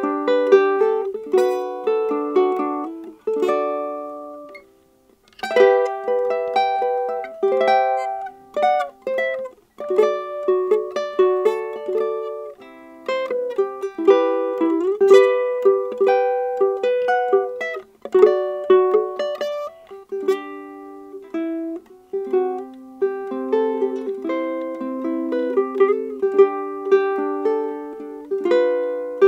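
Solo ukulele played fingerstyle, plucking chords and a melody line with each note ringing and decaying. About four seconds in the notes die away to a brief pause before the playing resumes.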